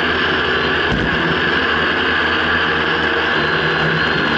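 Small electric quadcopter's motors and propellers running steadily while it hovers, heard close up from a camera mounted on the craft itself.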